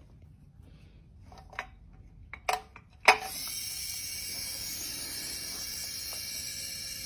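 A few light clicks and knocks of handling, then about three seconds in a hermetic refrigerator compressor, rigged with valves as a makeshift vacuum pump, switches on and runs with a steady hiss.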